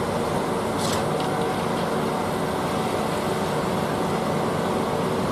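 Concrete mixer truck's diesel engine running steadily as the truck moves slowly along the street, with a short hiss about a second in.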